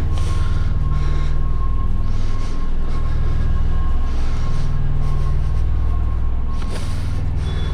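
Steady low mechanical drone with a faint high steady whine, heard inside an empty trailer; a single knock about seven seconds in.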